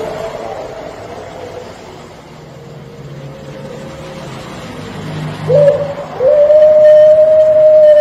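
Puter pelung, a Barbary dove breed kept for its long coo, calling: a long coo fades out at the start, a short note comes about five and a half seconds in, then a long drawn-out coo begins about six seconds in and holds at one pitch.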